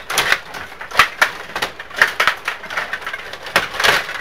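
Rod-operated table hockey game in play: a fast, irregular clatter of plastic clicks and knocks as the rods are pushed and spun and the players hit the puck, with the sharpest knock about a second in.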